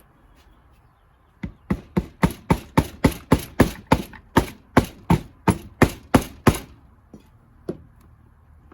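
A hammer tapping: about eighteen quick, sharp strikes at a steady three or four a second, then two lone knocks near the end. The taps are driving the VW Beetle transmission's gear shafts and bearings into the case cover.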